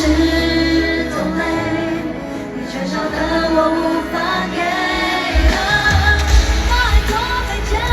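Live Mandopop dance track at a concert: a female lead vocal sings over an electronic beat, and a heavier bass line comes in about five seconds in.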